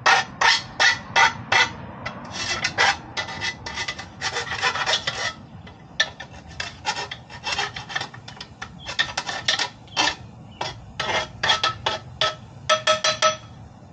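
Hand file rasping on aluminum in quick strokes, about three a second, with a short break about five seconds in. It stops shortly before the end, and the last few strokes ring with a faint metallic tone.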